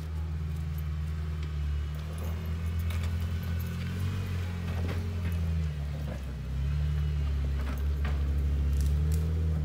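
Four-door Jeep Wrangler's engine running at low revs as it crawls up a muddy, snowy trail, its note dipping and rising slightly a few times. A few sharp clicks and knocks sound over it.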